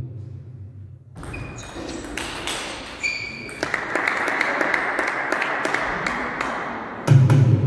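Table tennis ball clicking off bats, table and floor in a series of sharp taps, with two short ringing pings, then a steady hiss for the last few seconds of the taps. A loud low hum fades out in the first second and cuts back in near the end.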